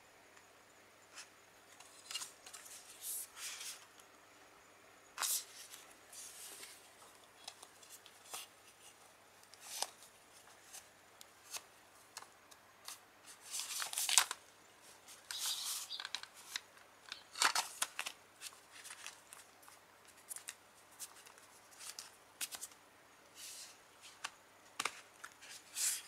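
Close-up handling of a CD's paper booklet and plastic jewel case: scattered soft rustles and crinkles as the glossy pages are bent and turned, with a few sharp clicks and taps of the plastic case.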